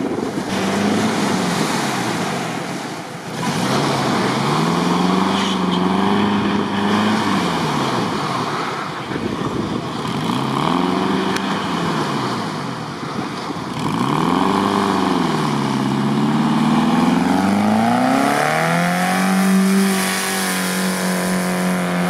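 BMW-engined Suzuki Samurai off-roader revving up and down about four times, then rising to steady high revs near the end as it pulls up through deep sand.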